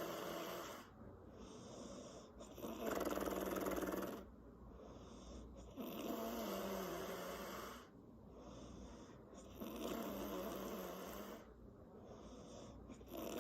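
A woman snoring in her sleep with her lips flapping on the breath. The loud snores come in a steady cycle about every three and a half seconds, each lasting one and a half to two seconds, with quieter breathing between them.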